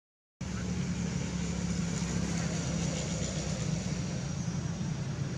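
A steady low hum of a running engine, after a split-second of dead silence at the very start.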